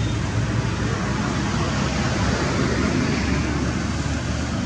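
Steady rushing outdoor background noise with a low rumble.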